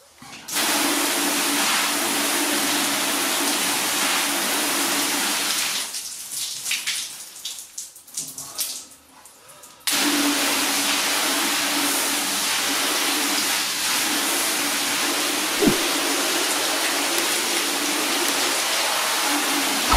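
Water spraying steadily from a garden hose spray nozzle onto a car bonnet, rinsing a freshly sealed surface to test its water beading and sheeting. The spray stops about six seconds in, leaving dripping and trickling, and starts again about ten seconds in, with one short knock near the end.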